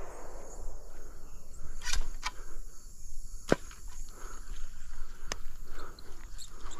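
Insects chirping steadily, with a low rumble and several sharp clicks and knocks, the loudest about two seconds and three and a half seconds in.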